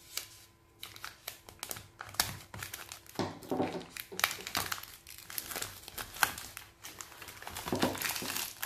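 Clear plastic shrink-wrap crinkling and crackling as it is handled and pulled off a boxed pack of bottles, in irregular bursts of sharp crackles, busier in the middle and near the end.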